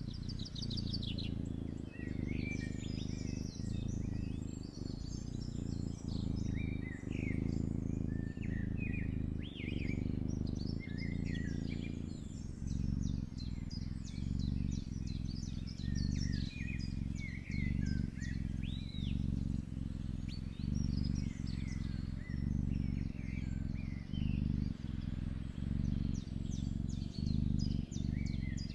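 Kitten purring close to the microphone, a low rumble that pulses about once a second, with birds chirping in the background.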